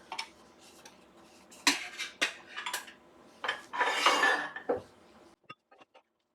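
Several sharp metal clinks and knocks, then a rattling clatter lasting about a second past the middle, from metal lathe gear being handled just after the bowl blank is clamped in the chuck.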